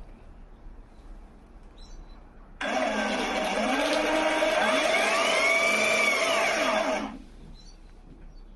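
Cordless pressure washer's electric motor and pump starting about two and a half seconds in and running for about four seconds, the whine rising and falling in pitch, then stopping abruptly.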